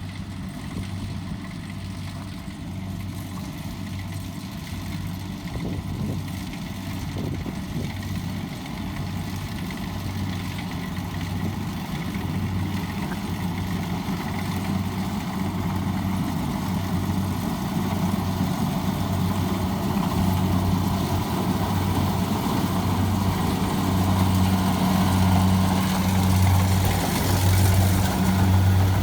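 Diesel engine of a Kubota DC70 combine harvester running steadily, with a regular low throb about once a second, growing gradually louder through the second half.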